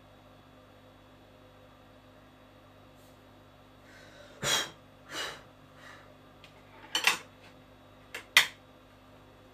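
Room tone with a low hum for the first few seconds, then a woman eating from a spoon: two sharp breathy exhalations, a softer one, and a double one. A couple of short clicks follow near the end.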